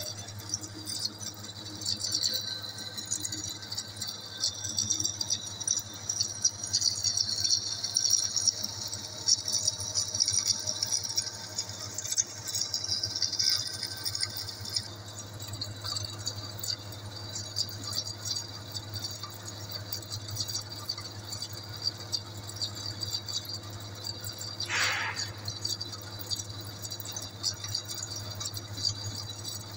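Large engine lathe running with a long steel shaft turning in it: a steady low hum under a busy metallic rattling, heaviest in the first half. About 25 seconds in, a brief squeal that falls in pitch.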